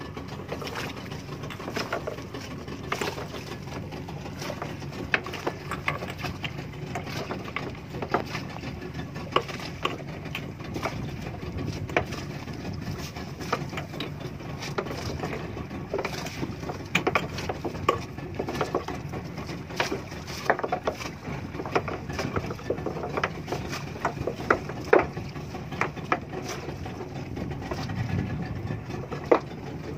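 A small fishing boat's engine running steadily at low revs, with irregular clicks and knocks as the shrimp gillnet is paid out over the wooden side of the boat.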